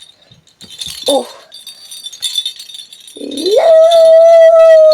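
A long howl that starts about three seconds in, rises in pitch, then holds one steady note to the end.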